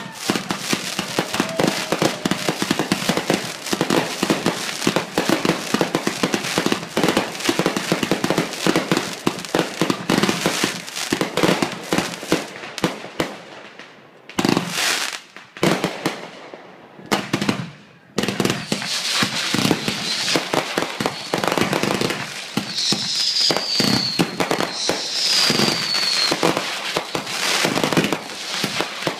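A fireworks finale: a dense, continuous barrage of crackling and popping bursts. It thins out briefly about halfway through, then comes back as heavy as before, with two whistles falling in pitch near the end.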